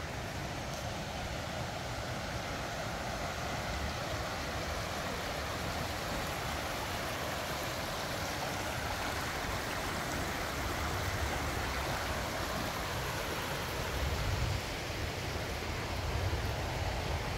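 Shallow rocky stream running over stones, a steady rushing, with a couple of low bumps near the end.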